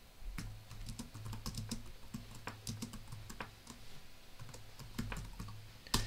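Typing on a laptop keyboard: a run of quick, irregular keystroke clicks, with a sharper keystroke near the end.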